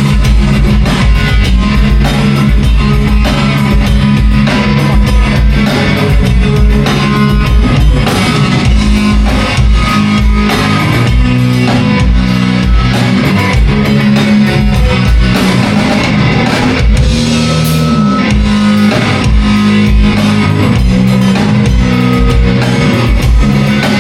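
Rock band jamming on electric guitar and drum kit during a soundcheck, playing loud and steady throughout.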